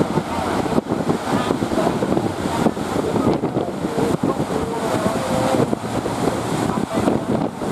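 Strong wind buffeting the microphone over the steady wash of sea surf, with a faint voice now and then.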